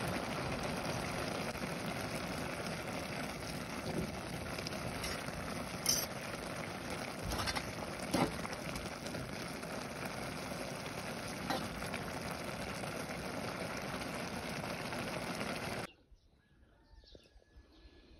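Pot of noodle soup simmering on a gas stove, a steady hiss, with a few clinks of a metal spoon against the pot. The hiss cuts off suddenly near the end, leaving faint outdoor sounds.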